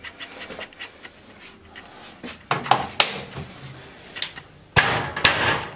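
Scattered clicks and a handful of sharp knocks and clatters in a small tiled room, loudest about two and a half, three, and five seconds in.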